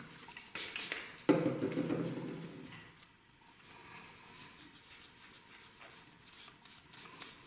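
Short, irregular scratchy rubbing strokes of a pad wiping a fingernail clean. A louder clatter comes about a second in.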